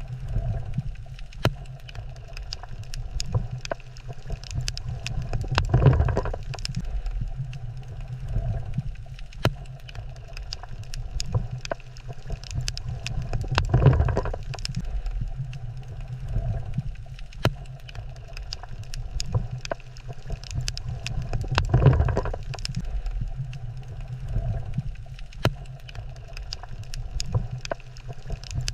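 Underwater ambience: a low rumble that swells about every eight seconds, with scattered crackling clicks throughout.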